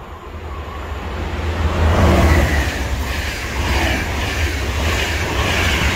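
Passenger train hauled by a Siemens Vectron electric locomotive passing through a station at speed. The sound builds as the locomotive approaches and peaks about two seconds in, then holds as a steady rush and wheel clatter while the coaches go by, over a strong low rumble.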